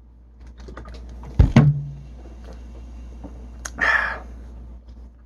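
Light clicks and taps, a sharp knock about a second and a half in with a brief low hum after it, and a short hiss just before four seconds.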